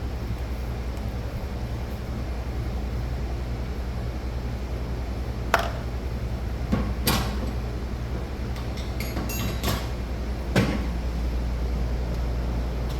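Metal tools and engine parts knocking and clinking as an engine is taken apart on the bench: four short sharp knocks, the first about halfway through and the rest within the next five seconds, with a few light clinks among them. A steady low hum lies underneath.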